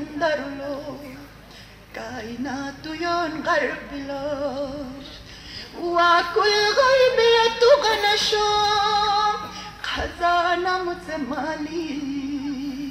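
A woman singing a ginan, an Ismaili devotional hymn, in long phrases with wavering held notes. Her voice is loudest in the middle, with a short breath break near 10 seconds.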